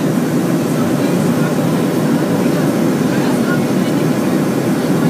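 Steady cabin noise inside a Boeing 737 airliner, the even rush of engines and airflow, with no changes and no sudden sounds.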